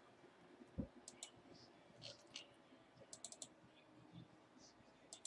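Faint, scattered clicks of a computer keyboard and mouse, including a quick run of several clicks around the middle, with one dull low thump about a second in.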